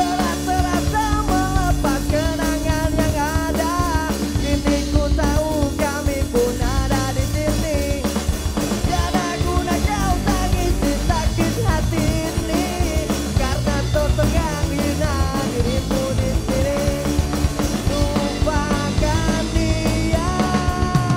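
Punk rock band playing live: a singer over electric guitar, bass guitar and a drum kit.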